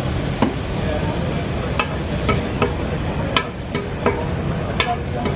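Metal spatula scraping and clinking against a large steel griddle pan as tantuni meat is stirred: a series of sharp, irregular metallic clinks over a steady frying sizzle.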